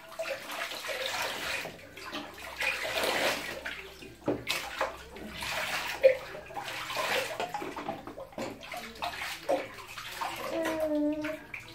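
Water sloshing and splashing in a small plastic baby bathtub as a baby is washed by hand, coming in several bouts, with a couple of sharp knocks midway.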